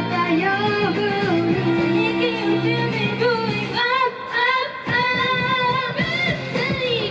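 Live J-pop idol song: girls' voices singing over a backing track with a steady beat, played loud through a stadium PA.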